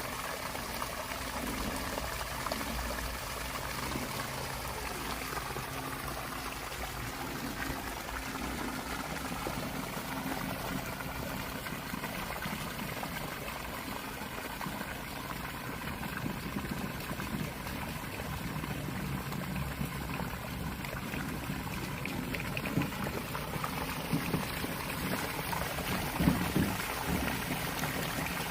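Water pouring and splashing steadily out of the discharge outlet of an outdoor 1/3-horsepower sump pump system. A couple of sharper sounds stand out near the end.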